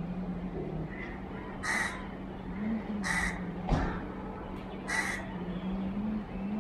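A crow cawing three times, harsh calls about a second and a half apart, over a steady low hum. A single sharp thump comes about halfway through.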